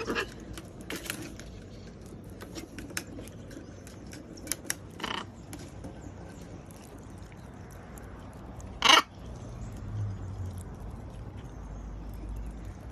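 Parrots nibbling at banana, with many small beak clicks and scrapes, and one short loud noise a little before nine seconds in.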